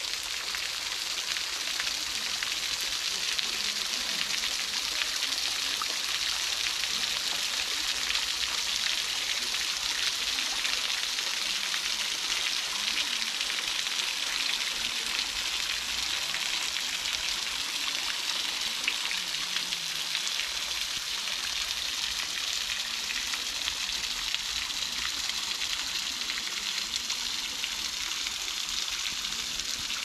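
Water from a small waterfall falling over a rock ledge and splashing steadily into a shallow rock pool, an even hiss of running and spattering water.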